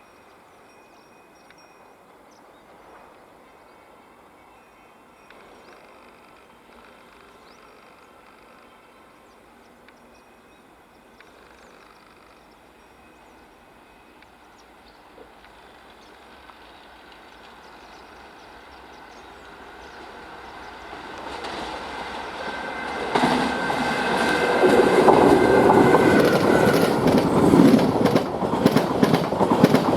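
Express train approaching at speed, its rumble building for several seconds, then running past close by at over 100 km/h with a rapid, rhythmic clatter of wheels over the rail joints ("musical track sounds").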